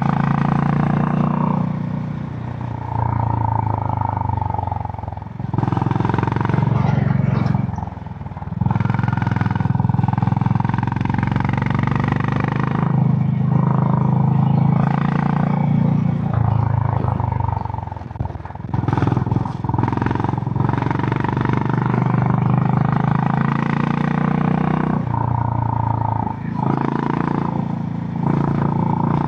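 Honda GB350 (H'ness CB350) air-cooled single-cylinder engine through its stock exhaust, running at road speed. It eases off briefly a few times, around five, eight and eighteen seconds in, and then pulls again.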